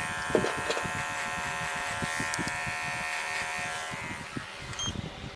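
Cordless electric hair clipper running with a steady buzz as it cuts short hair over a comb. The buzz weakens a little after four seconds in.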